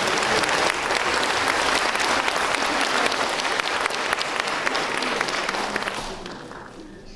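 Audience applauding in a hall: dense clapping that dies away about six seconds in.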